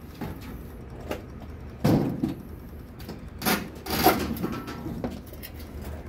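A few knocks and clunks from the lids and body of an old Zolushka twin-tub washing machine being handled: a loud one about two seconds in, then two more with a brief clatter about three and a half and four seconds in.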